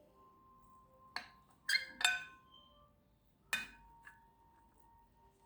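A knife clinking against a serving plate while a slice of cake is cut and served: four sharp clinks with brief ringing, two close together near the middle.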